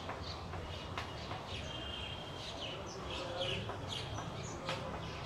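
Chalk scratching and tapping on a blackboard as words are written, with small birds chirping in short repeated calls in the background.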